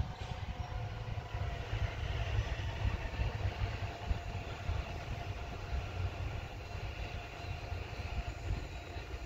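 Distant ICE high-speed train running past at speed: a steady rushing noise with a few faint steady tones. Wind buffets the microphone as a low, uneven rumble throughout.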